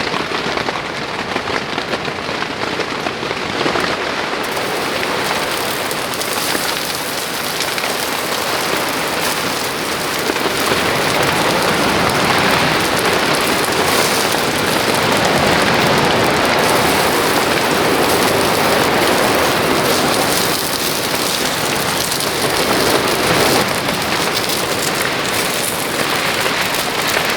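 Heavy rain falling steadily in a mountain storm, getting heavier from about ten seconds in.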